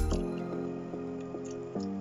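Background music: a soft, even melody of held notes changing about three times a second, just after a beat-driven passage cuts off at the start. Faint wet clicks of chewing lie underneath.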